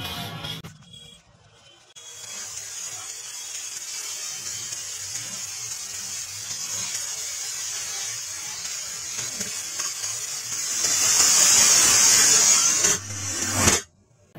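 Firecracker rockets tied end to end and spinning on a wire, burning with a steady high hiss of spraying sparks. The hiss starts about two seconds in after a short lull, grows louder near the end, then cuts off suddenly.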